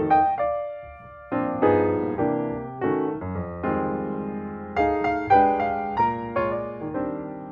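Background piano music: notes and chords that each ring out and fade.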